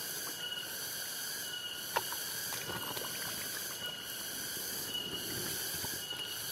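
Steady chorus of insects, with a short high chirp repeating about once a second. A few faint clicks sound over it.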